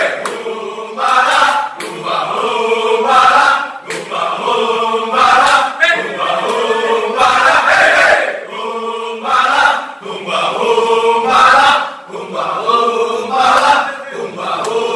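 A group of men chanting and singing a yel-yel cheer song together in unison. It comes in loud, rhythmic phrases with brief breaks every two seconds or so.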